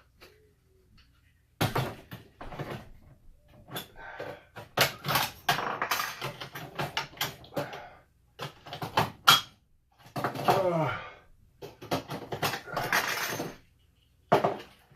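Hands prying and clattering metal parts of an Xbox 360 on a work surface: a run of sharp knocks and scrapes, with a short bending squeal about ten seconds in, as the heat sinks are worked off the motherboard.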